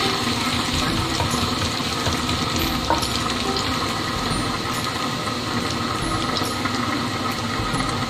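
Garlic paste sizzling in hot oil in a frying pan as it nears golden, a steady frying hiss. A single light knock sounds about three seconds in.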